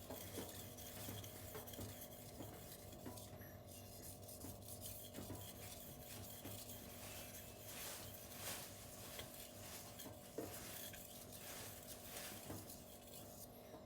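Steel knife blade drawn in repeated strokes across a 1000-grit silicon carbide whetstone: a soft, muted scraping with a faint steady hum underneath.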